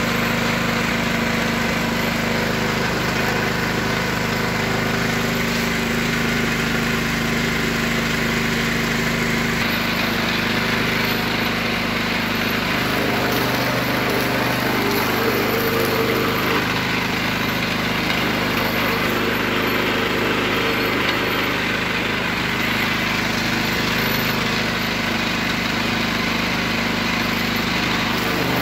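Small engine running steadily, driving a sugarcane juicer's steel rollers as cane stalks are fed in and crushed. Its note shifts slightly about ten seconds in and again a few seconds later.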